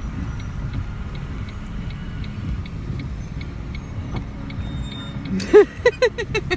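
Steady low rumble of a car cabin while driving, with a faint regular ticking. About five seconds in, a person bursts into loud laughter in several short peals.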